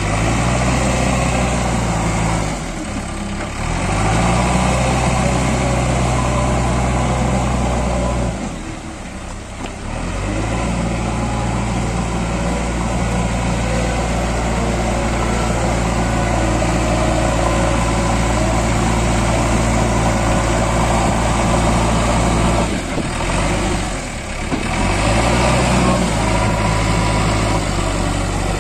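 JCB 3DX backhoe loader's diesel engine running loud and steady as the machine works through deep mud, its note dipping and shifting briefly three times.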